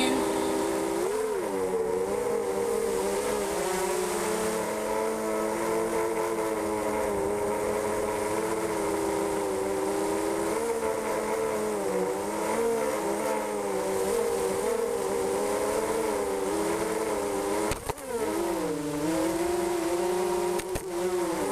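Motors and propellers of a 250-size Diatone Silverblade FPV quadcopter in flight: a steady buzzing whine whose pitch rises and falls with the throttle. About 18 seconds in there is a click and a brief drop in the sound, then the pitch swoops down and back up.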